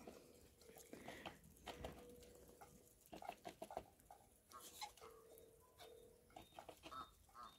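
Near silence: faint patter of small splashes and clicks from geese swimming and preening in a small pond, with a few short, faint poultry calls in the second half.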